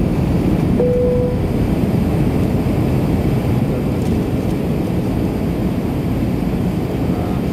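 Airbus A321 jet engines on approach to land, a steady low rumble.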